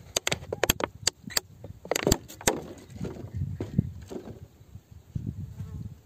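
A hand picking a small clear crystal off rough volcanic rock: a quick run of sharp clicks and scrapes of stone and fingertips on the rock in the first couple of seconds, then softer rustling handling noise.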